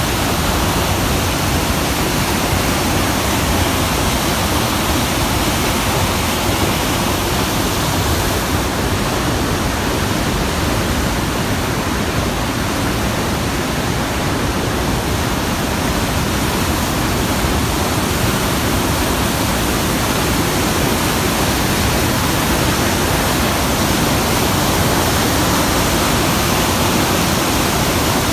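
Whitewater of Rearguard Falls on the Fraser River rushing in a loud, steady roar of falling and churning water.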